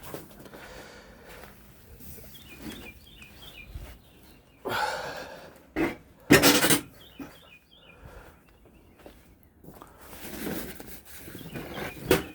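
Stored objects being handled and shifted, rubbing and scraping, with a few loud knocks and clatters around the middle. Birds chirp a few times.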